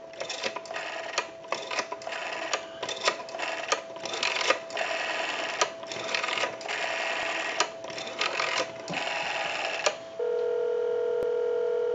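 Rotary dial of a Western Electric wooden wall telephone being pulled round and released digit after digit, each return whirring with a train of quick pulse clicks, heard through an amplified handset pickup. About ten seconds in, a steady two-second ringback tone comes down the line as the dialled call goes through.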